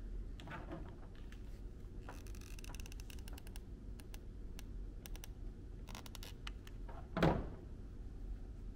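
Scattered light clicks and taps as a hot glue gun is handled and fur is pressed onto a papier-mâché lion head, with one louder knock about seven seconds in.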